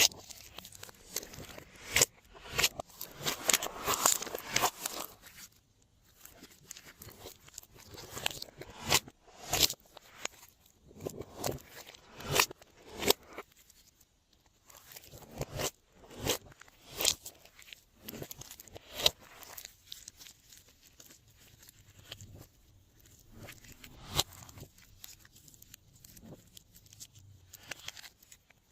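Glossy slime being kneaded and folded by hand, giving off irregular sharp clicking pops and short crackles as the air pockets burst.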